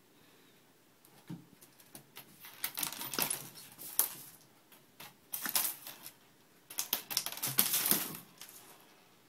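Small loose objects rattling and skittering across the bottom of an emptied desk drawer as a Siamese cat bats at them and scrabbles about inside it, in three bursts of rapid clicking.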